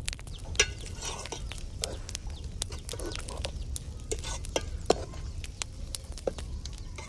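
Sliced onions frying in a steel pot over a wood fire, stirred with a steel ladle that clinks and scrapes against the pot with many sharp knocks.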